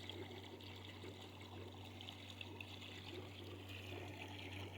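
Faint water trickling over a steady low hum, from a manual pool vacuum on a hose drawing water off the pool bottom through the filter pump.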